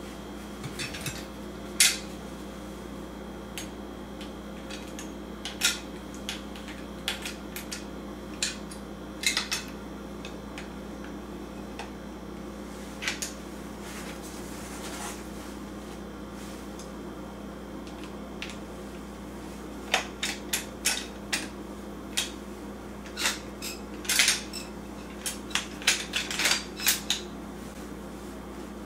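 Metal parts of a Benelli Argo E Pro rifle clicking and clinking as the barrel and bolt assembly is worked onto the receiver. The clicks are irregular and scattered, then come thick and fast for several seconds near the end, over a steady low hum.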